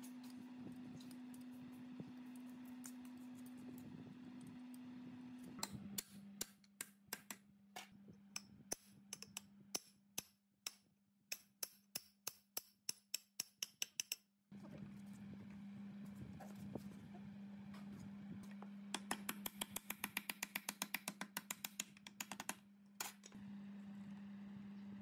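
Small sharp metal clicks and taps of hand work on machine parts, an Allen key and a sprocket being fitted on a gearbox shaft: scattered clicks through the middle, then a quicker run of clicks near the end. A steady low hum lies under it.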